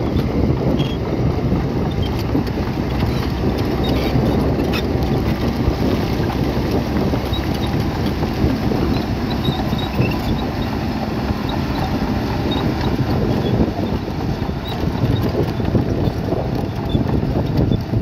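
Heavy diesel construction machinery running steadily in a low rumble, with scattered faint clicks and clinks over it.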